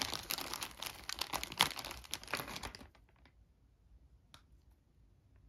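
Plastic bag crinkling and rustling for about three seconds as a hand rummages in it, then quiet apart from a single click about four seconds in.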